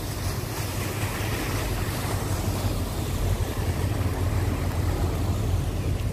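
Wind buffeting a phone's microphone, a steady low rumble, over the rush of churning river water.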